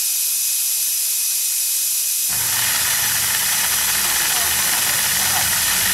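Steady hiss. About two seconds in, a fuller mechanical running noise with a low hum joins it: a miniature belt-driven grain mill running while rice is poured into its hopper.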